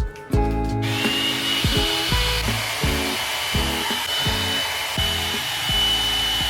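A hair dryer switching on about a second in and running steadily with a high whine over its rushing air, while background music with a beat plays.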